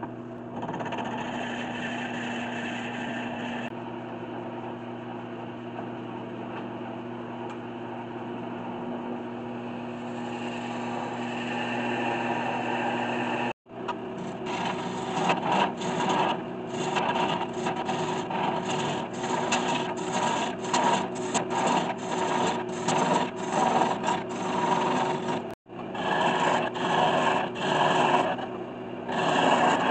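Wood lathe spinning a black walnut blank while a Forstner bit bores into its end grain, with a steady motor hum under the cutting noise. After a sudden cut, a hollowing tool scrapes inside the jar's opening in many short, uneven strokes, loudest in the second half.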